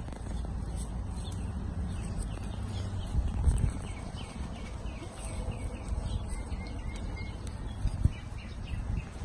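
Small birds twittering over a low rumble, with a dull thump about three and a half seconds in and another near the end.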